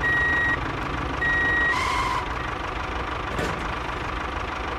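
Vehicle reversing beeper sounding twice, slow half-second beeps in the first two seconds, over a steady low engine rumble: the sound effects of a toy combine harvester.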